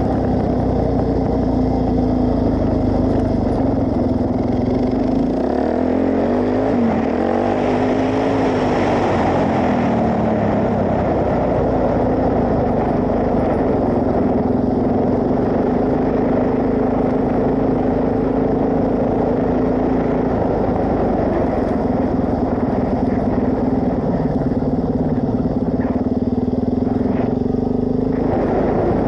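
Suzuki DR-Z400S single-cylinder four-stroke engine running while the bike is ridden. Its pitch wavers up and down with the throttle for several seconds, then holds steady for a long stretch.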